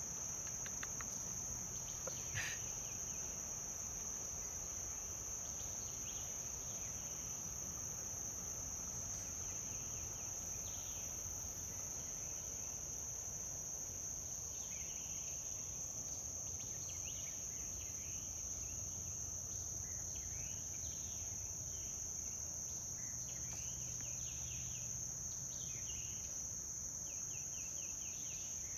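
A steady, high-pitched insect chorus drones without a break, with short bird chirps scattered through it and a single click about two seconds in.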